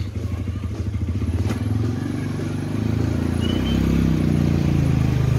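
Small motor scooter engine running at low speed, growing louder from about two seconds in as it comes closer. A single click about a second and a half in.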